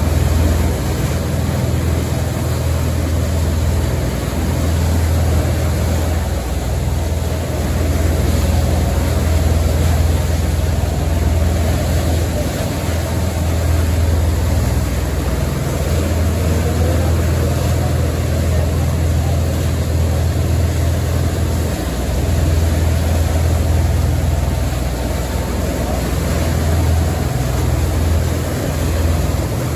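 A ferry's engines running at steady cruising speed, a constant low drone, under the hiss of the churning propeller wash and wake.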